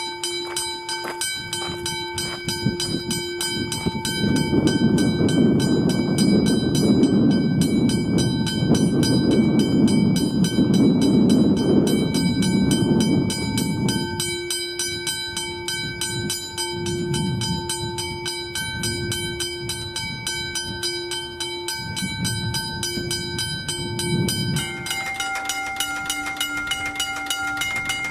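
Westinghouse teardrop level-crossing bell ringing with rapid, evenly spaced strokes, with a louder rushing noise underneath for about ten seconds in the middle. Near the end it gives way to a different Westinghouse crossing bell, higher-pitched, ringing at an active crossing.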